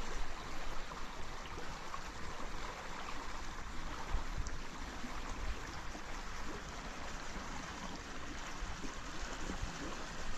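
Steady rushing of a fast-flowing river running high and fast after recent rains.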